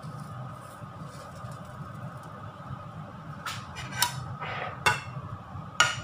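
A few sharp clinks of dishware in the second half, the loudest and most ringing just before the end as a plate is set down beside the stove, over a steady low hum.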